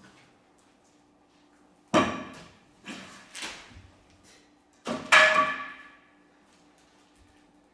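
Knocks and clatters of a painter working on a canvas spread over the floor with a wooden pole and his hands. There are two loud strikes with a brief ringing, about two seconds in and again about five seconds in, and softer knocks between them.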